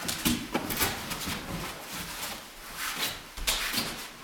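Irregular footsteps and scuffs of a person and a dog walking together on carpet, with a few short knocks.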